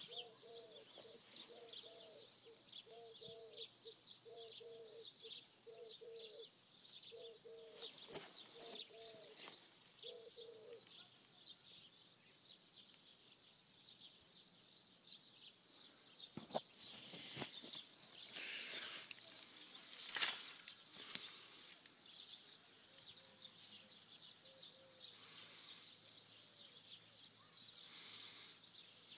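A toad croaking in a run of short, low notes for the first ten seconds, returning faintly later, while small birds chirp high and steadily throughout. A few sharp knocks and rustles about halfway through are the loudest sounds.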